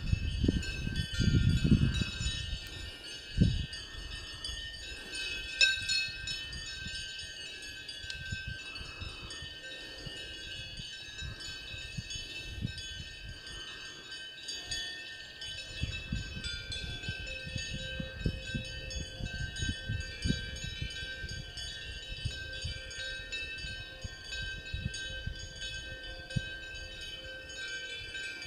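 Cowbells on a herd of grazing Montbéliarde cows ringing without pause, many bells of different pitches jangling over one another. Low rumbles come and go underneath, loudest in the first couple of seconds.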